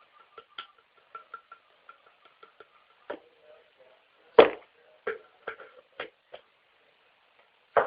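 Kitchen items being handled while ingredients go into a blender: light, quick ticking for the first couple of seconds, then several knocks and clunks, the loudest about halfway through.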